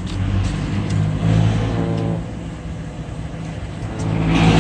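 Steady low hum with paper rustling near the end as a phone's printed quick start guide is handled.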